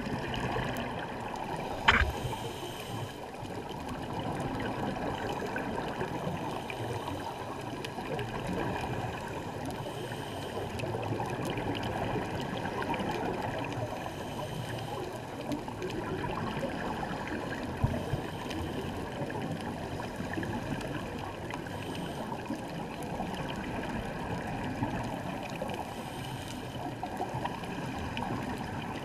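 Muffled underwater noise from a scuba dive: a steady gurgling hiss of the divers' regulator bubbles. A sharp knock comes about two seconds in.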